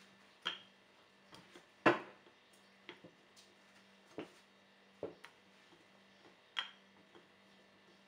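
Wooden rolling pin rolling out bread dough on a silicone mat: scattered light knocks and clicks, the loudest about two seconds in, over a faint low hum.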